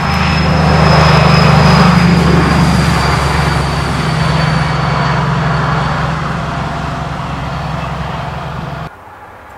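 DB class 218 diesel-hydraulic locomotive running past with its V12 diesel engine droning, hauling double-deck coaches whose wheels rush on the rails, with a high whistle that falls slightly in pitch. It is loudest a second or two in, fades as the train moves away, and cuts off suddenly near the end.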